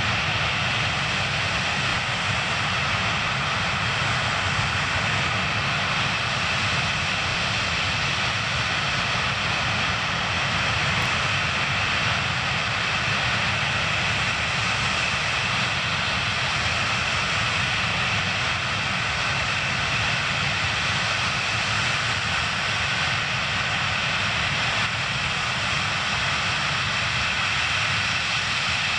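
Antonov An-124-100's four D-18T turbofan engines running steadily on the ground, a constant whine over a low rumble with no change in power.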